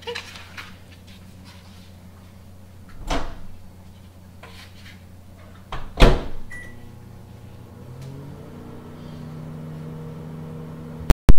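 Over-the-range microwave oven: its door shut with a knock, a single keypad beep, then the oven starting up and running with a steady hum. An earlier softer knock, and a sharp loud click near the end.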